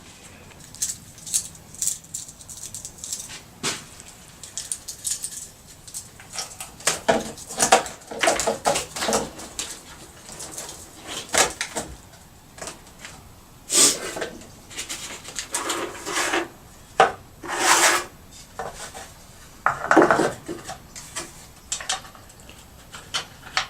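Irregular metal clicks, clinks and short scrapes of parts and tools being handled as a chainsaw side cover with bolted-on felling dogs is fitted back onto a Stihl MS 391.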